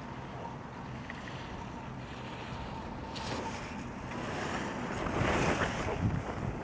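Wind noise on the microphone, with a louder hiss about five seconds in as skis scrape across the snow close by.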